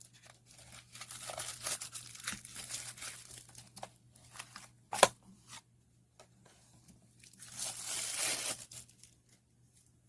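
Packaging being handled during a knife unboxing: crinkling and tearing in two stretches, with one sharp click about halfway through.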